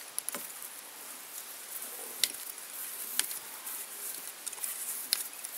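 Hands wrapping rayon floss around a copper tube fly held in a fly-tying vise: a faint rustle with a few sharp ticks, three of them louder.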